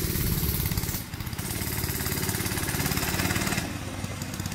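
Ram-Jet mini bike's 4 hp Tecumseh single-cylinder engine running as the bike is ridden away, growing fainter about three-quarters of the way through.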